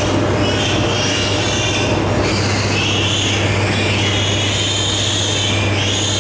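Piglets squealing over and over in a farrowing shed, long high-pitched squeals overlapping one another, over a steady low hum.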